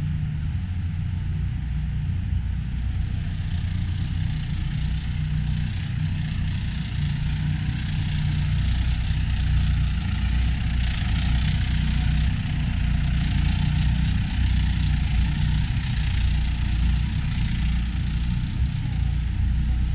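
A large engine idling steadily, getting a little louder about eight seconds in.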